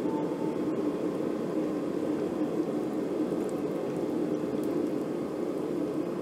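Quench oil boiling steadily around a hot forged steel blade held submerged in the quench tank: a continuous bubbling hiss as the blade is hardened.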